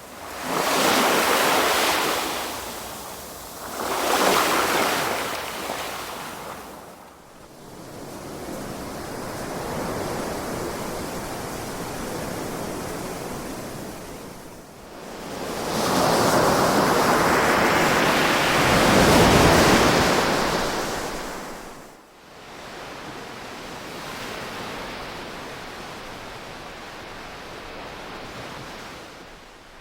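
Ocean waves breaking and washing up the shore. Two surges come close together at the start, a softer steady wash follows, and a longer, louder surge builds a little past halfway before falling back to a gentle wash.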